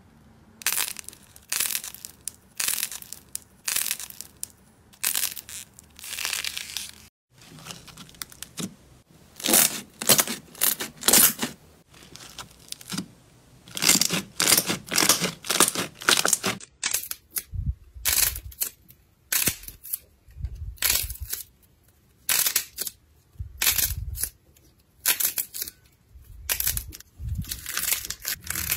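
Slime being pressed, squeezed and pulled by hand: repeated short sticky crackling and squishing sounds in separate bursts, a few per second. In the later part some of them have a deeper thud underneath.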